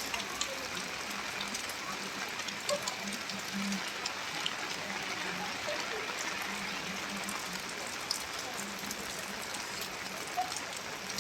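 Steady rain falling, with sharp individual drop ticks scattered throughout. A faint low hum comes and goes underneath.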